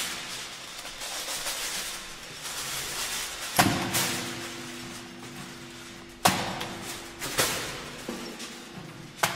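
Live experimental ensemble music: a hissing, rustling noise texture broken by sharp strikes, the loudest about a third of the way in and about two-thirds in, with low steady hums ringing on after them.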